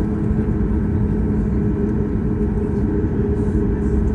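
Steady cabin rumble of a Boeing 737 airliner taxiing on the ground, its jet engines at idle and wheels rolling, with a low steady hum running through it.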